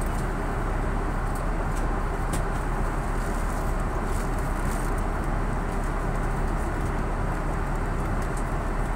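Steady in-flight cabin noise of an Airbus A330-900neo: an even, unbroken rush of airflow and engine noise, weighted to the low end, with a faint steady hum.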